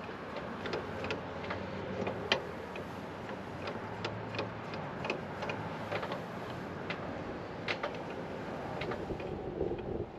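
Light metal clicks and clinks, uneven, a few a second, from a C-frame ball joint press and its adapter cups being seated and the press screw turned by hand on a lower control arm, in setting up to press in a new ball joint.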